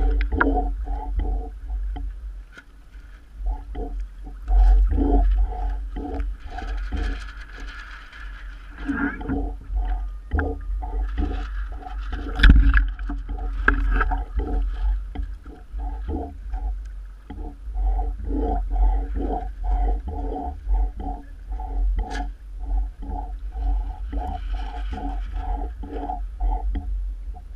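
Water slapping and gurgling around a camera riding at the waterline on choppy water, in a quick run of short, hollow pulses over a steady low rumble of wind and waves on the microphone.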